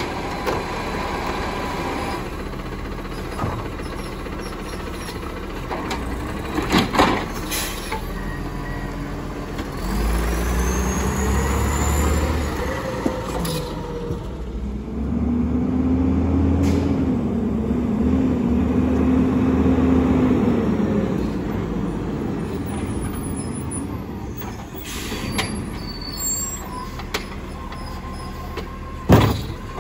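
Automated side-loader recycling truck at work: a bang as the arm handles a cart, then the truck's engine revving and running under load for several seconds as it pulls ahead, and air brakes hissing. Another sharp bang comes near the end as the arm reaches the next cart.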